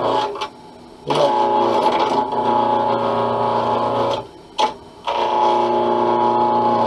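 SIP 01936 lathe running at high speed with a steady motor whine, dropping out abruptly twice for under a second.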